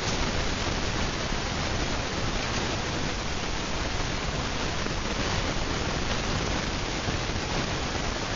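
Hunter Low Profile ceiling fan running at speed: a steady, even rush of moving air.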